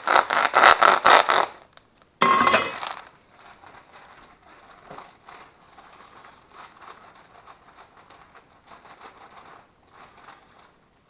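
Kitchen handling noise: a quick run of sharp clinks and clicks for about a second and a half, then a short loud rustle, then faint rustling and scraping as the brown sugar bag is opened and worked.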